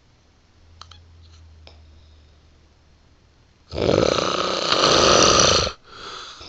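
A person snoring: after a few quiet seconds comes one loud snore lasting about two seconds, followed by a softer breath.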